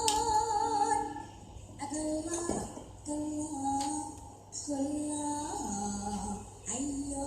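Background music: a song with a woman singing held, wavering notes in short phrases.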